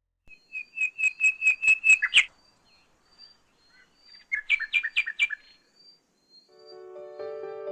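A bird calling in two quick runs of repeated high, sharp notes, the first of about eight notes and the second, a couple of seconds later, of about six. Music fades in near the end.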